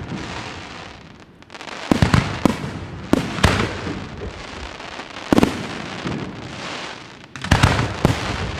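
Aerial firework shells bursting in sharp bangs, in clusters about two seconds in, around three seconds, at five and a half seconds and again near the end. A fading hiss of golden glittering stars fills the gaps between them.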